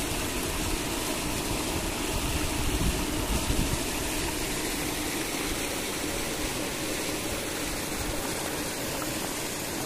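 Paddlewheel aerators churning shrimp-pond water: a steady rushing splash with a low motor hum underneath.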